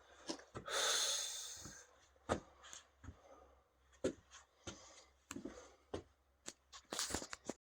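Cardboard firework boxes being handled: a rustling slide of about a second near the start, then scattered knocks and taps as packages are moved about.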